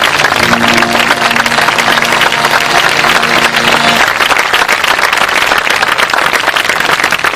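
Audience applauding at the end of a song. For the first four seconds a held low musical note sounds under the clapping, then it stops.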